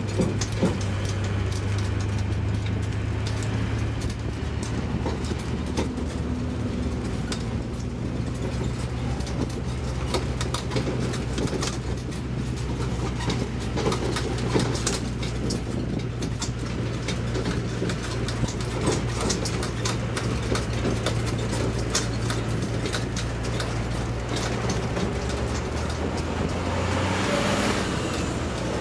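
Tourist road train heard from aboard a carriage: its engine runs with a steady low hum at low speed while the carriages rattle and click over the road. Near the end a brief rush of noise comes up as a bus passes close alongside.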